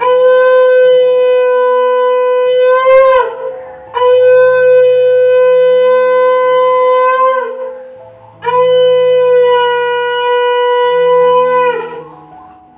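Conch shell (shankha) blown in three long, steady blasts, each wavering in pitch as it ends, sounded during Hindu household worship.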